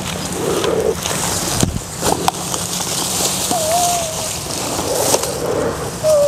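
King cobra giving repeated low growling hisses while it is handled, over a steady rustle of grass and a cloth sack, with a few sharp clicks of handling.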